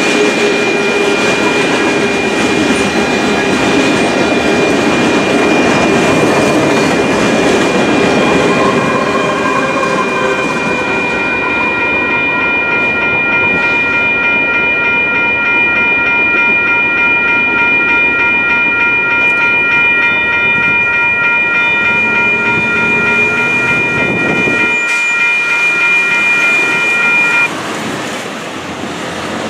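Union Pacific manifest freight train rolling through a grade crossing, its wheels running on the rails, while the crossing's WCH electronic bells ring steadily. The train noise fades out about ten seconds in, leaving the bells ringing on their own until they cut off suddenly near the end, when the crossing deactivates.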